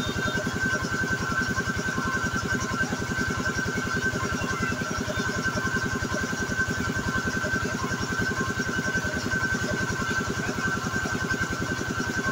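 Piston air compressor running steadily with a rapid, even chug and a steady whine over it, supplying air through a hose to inflate a tubeless car tyre.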